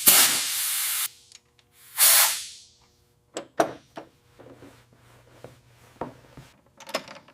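Spray hissing in two bursts: the first lasts about a second and cuts off sharply, and the second comes about two seconds in and fades away. Scattered light clicks and taps follow.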